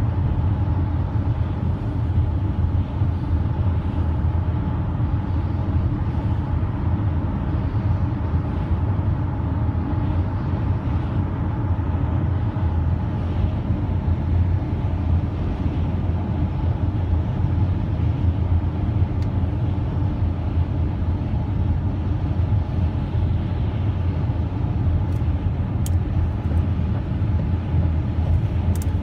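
Steady road noise inside a moving car: a low rumble from the engine and from the tyres on wet pavement. A windshield wiper swipes across the glass near the end with a few faint clicks.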